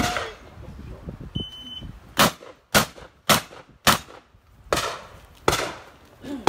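A shot timer's short electronic beep, then shotgun shots: four in quick succession about half a second apart, followed by two more at slower spacing.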